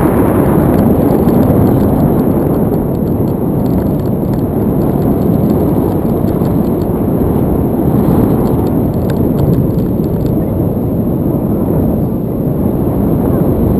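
Wind rushing and buffeting over a GoPro's microphone in flight under a tandem paraglider: a loud, steady rumbling noise with no engine.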